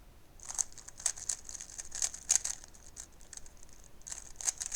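Rubik's cube being turned by hand: a quick, irregular run of light plastic clicks and clacks as the layers are twisted.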